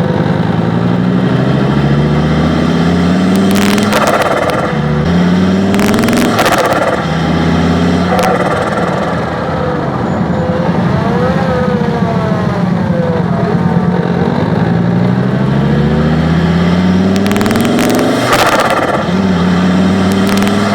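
Fiat Marea's turbocharged five-cylinder engine heard from inside the engine bay, revving up several times, each rise in pitch cut off by a short rushing burst as the throttle closes: the turbo fluttering, compressor surge through a modified air filter. The revs drop lower and steadier for a few seconds in the middle.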